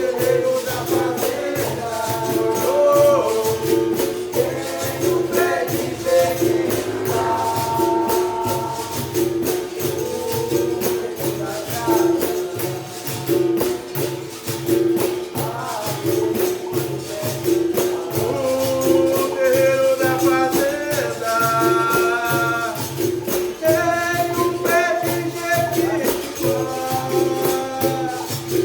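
Capoeira music: berimbau and pandeiro keeping a steady rhythm while voices sing, the singing growing stronger in the second half.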